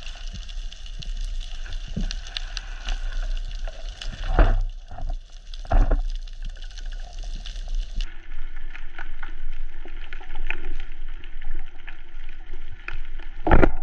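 Underwater reef sound: a steady hiss full of crackling clicks, with two dull thumps around the middle. Near the end a loud, sharp thump, the speargun firing at the snapper.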